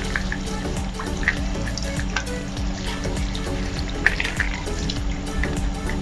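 Tap water running and splattering over a plastic washing-machine lint filter held under the stream, with scattered light clicks and knocks as the filter is handled and rinsed. Background music plays underneath.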